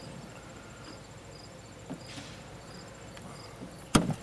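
Screwdriver prying at the metal retaining clip on a VW MK4 Golf trunk strut's end fitting: a small click about two seconds in and a sharp snap near the end. Crickets chirp steadily behind.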